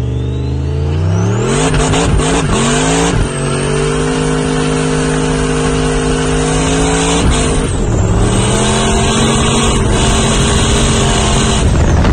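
A vehicle doing a burnout: the engine revs up and is held at high revs while the spinning tyres hiss and squeal. The revs dip briefly about three seconds in and again about seven seconds in, then climb back.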